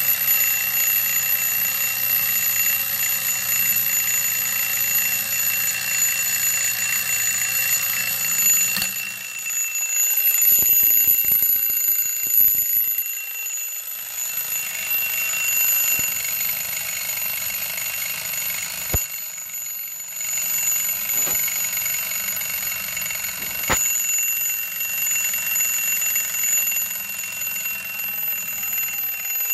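Antique brass carriage clock's alarm bell ringing: it starts suddenly and rings on steadily. Handling knocks and clicks come about a third of the way through.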